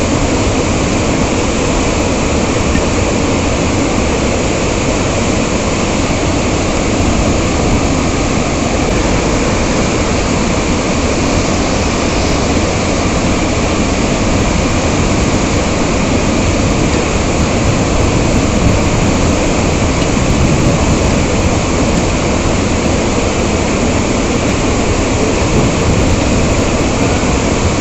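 Water rushing through the opened spillway shutters of the Cheruthoni dam, part of the Idukki reservoir, as a loud, steady, unbroken noise.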